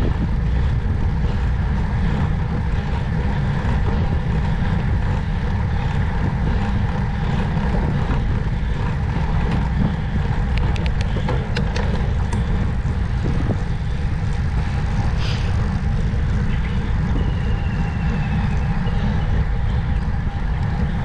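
Steady wind rush and rumble on the microphone while riding along.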